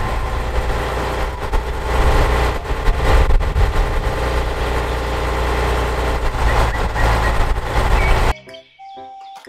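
Heavy tow truck's diesel engine running steadily at the standstill while the crane boom is worked from the operator's seat. It cuts off abruptly near the end, leaving faint chiming tones.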